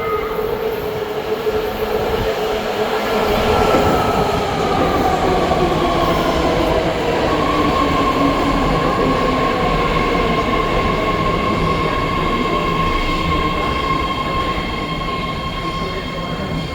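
BART train pulling into an underground station: the running noise swells about three seconds in, then the motor whine falls in pitch as the train brakes and settles into a steady high tone over the rumble of the cars.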